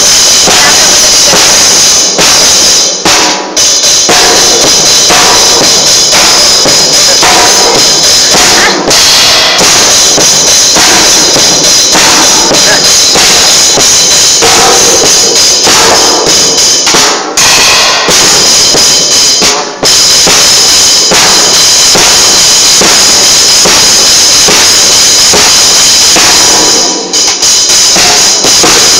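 Drum kit played by a small child: continuous hits on the snare drum and cymbals with a steady wash of cymbal. The recording is very loud, with a few momentary breaks.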